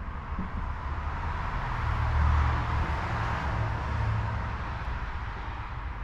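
A rushing noise with a low rumble beneath it, swelling to a peak in the middle and easing off again.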